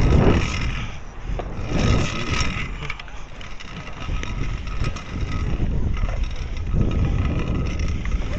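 Trikke's small wheels rolling over the concrete of a skatepark bowl, a steady rumble with wind buffeting the microphone. It swells louder at the start and again about two seconds in.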